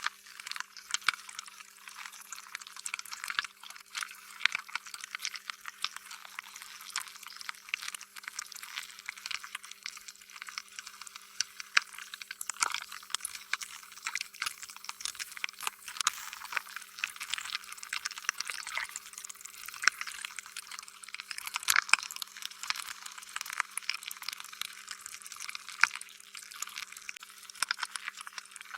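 Slime being squished and worked by hand: a continuous run of wet, sticky clicks and squelches, thin with no low end.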